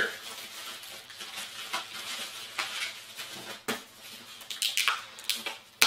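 A boxed cutting machine being slid out of its cardboard box: scraping and rustling of cardboard and packaging, with a few sharp knocks and clicks, most of them around four to five seconds in.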